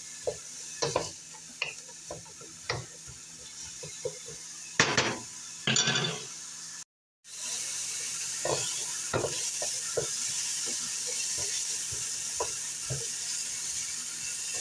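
Chopped onions frying in olive oil in a stainless steel skillet, sizzling as they begin to soften, while a wooden spoon stirs and scrapes them around the pan with light knocks against the metal. The sound cuts out for a moment about seven seconds in and the sizzle comes back louder.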